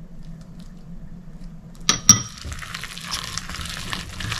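Two sharp clinks about two seconds in, as a ceramic spoon is set against a bowl, each ringing briefly. Then a plastic-gloved hand kneads coconut milk into a sticky banana and rice-flour dough in a stainless steel bowl, with a steady wet squishing and glove rustle.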